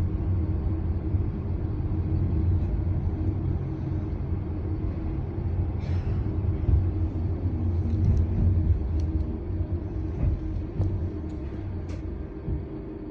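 Steady low rumble of a moving vehicle heard from inside, with a few light clicks and knocks.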